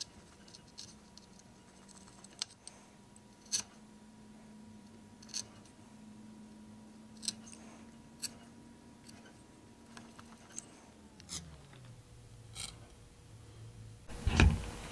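Hand chisel paring the waste from the sockets of a small dovetail board, guided along a steel 1-2-3 block: sharp clicks and light scrapes, about one every second or two. Under them a faint steady hum that slides lower in pitch about eleven seconds in, and a louder burst of noise near the end.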